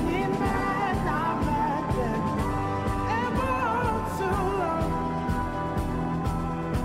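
Recorded song with a singer's voice gliding through drawn-out melodic lines over sustained chords and a steady beat.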